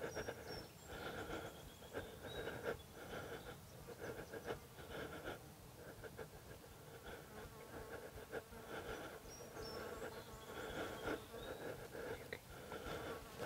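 A small flying insect buzzing close by, its buzz swelling and fading, with a few faint, short, high chirps.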